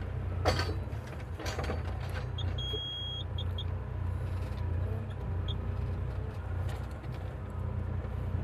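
Bobcat E35 compact excavator's diesel engine running steadily while digging, with a few short knocks. About two and a half seconds in, the Depth Check system sounds a steady tone for under a second, its signal that the bucket tooth has reached target depth, followed by a few short beeps at the same pitch.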